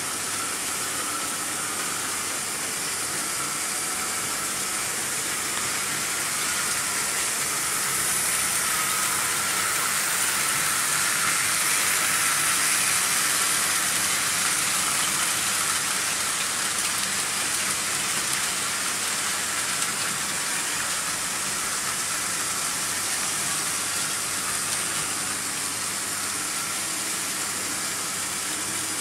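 Several Märklin H0 model trains running at once on stamped-metal M-track: the steady rolling hiss and rattle of metal wheels and small electric motors, growing louder in the middle and easing off again.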